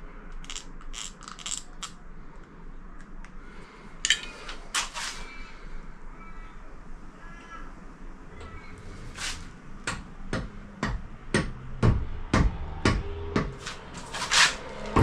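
Rubber mallet tapping a metal cabinet handle, its glued pointed screws, into drilled holes in a wooden pull-out board: a run of sharp taps about two a second from about halfway in, getting louder near the end. Before that, a few scattered clicks and short high squeaky sounds.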